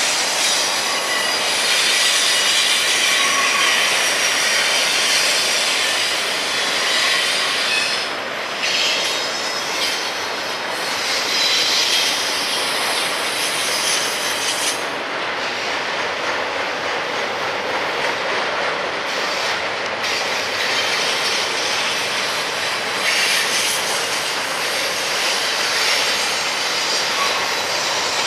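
Double-stack intermodal freight train's well cars rolling past on steel wheels, with a steady rumble and a high screech that rises and fades at times.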